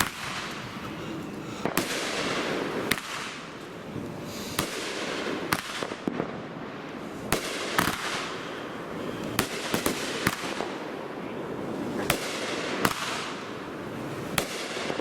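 Sky Bacon 'Jurassic Pork' 12-shot, 500-gram firework cake firing: a string of sharp reports at uneven intervals of roughly half a second to two seconds, each followed by a fading hiss.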